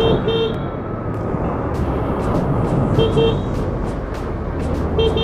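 Motorcycle riding at speed with steady wind and road rumble over a low engine hum. A horn gives short toots: a quick run of three at the start, two about three seconds in, and more right at the end.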